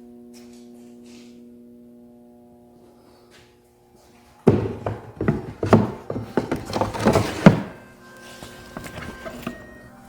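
Chisels and wooden parts of an old tool chest being handled: a run of loud, irregular knocks and clatters starting about four and a half seconds in, settling into lighter taps with a faint metallic ring. Before that there is only a faint steady tone.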